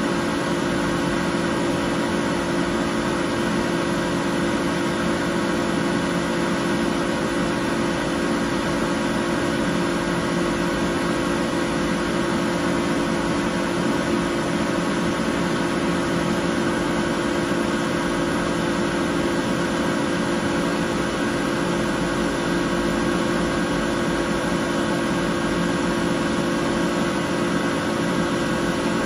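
Desktop laser cutting machine running with a steady hum: several steady tones over an even hiss, unchanging throughout.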